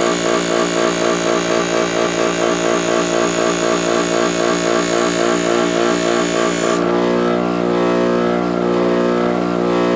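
An electric sanding machine's motor running steadily while stainless steel trim is sanded on it, with a pulsing, hissing grind. About seven seconds in the grinding hiss stops and the motor hum carries on.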